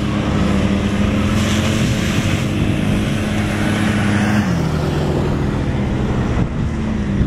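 Small youth ATV engine running at a steady pitch, then dropping to lower revs about four and a half seconds in and holding there.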